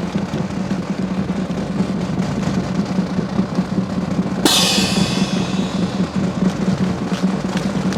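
Marching drum cadence of snare and bass drum, with one cymbal crash about halfway through that rings out and fades over about a second, over a steady low hum.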